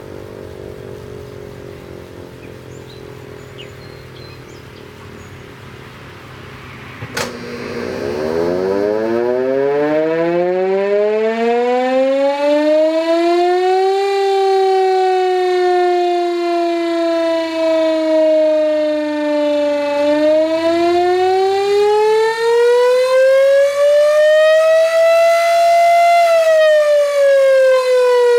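Gryphon 2048 electric siren sounding the attack signal: quieter at first, its pitch sliding down as it coasts. After a sharp click about seven seconds in, it winds up steeply and then wails, falling, rising again and falling near the end.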